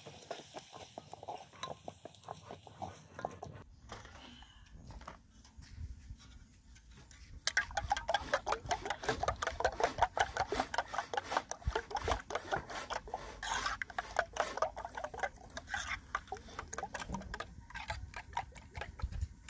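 Eggs being beaten with a spoon in an aluminium bowl: a fast, steady run of light clinks and scrapes against the metal, starting about seven and a half seconds in. Before that there is fainter scraping of a pot being stirred, then a short lull.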